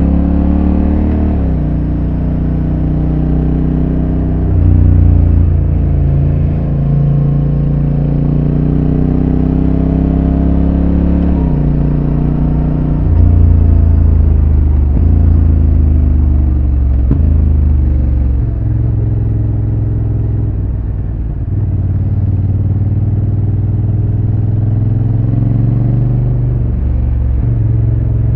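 Honda NT1100's 1084 cc parallel-twin engine on its stock exhaust, heard on board while riding. The note rises and falls with the throttle and jumps suddenly in pitch several times as it changes gear.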